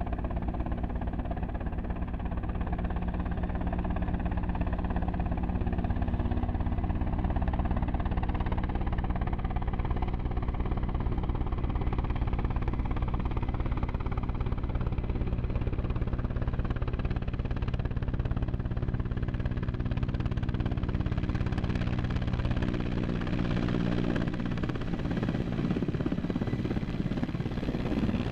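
Mil Mi-8AMT twin-turbine helicopter on landing approach: a steady turbine whine with fast, even main-rotor thumping. It grows hissier in the last several seconds as it comes near to set down.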